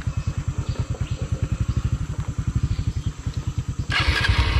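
Honda Verza 150's single-cylinder engine idling with an even, quick beat, then about four seconds in it revs up and gets louder as the bike pulls away.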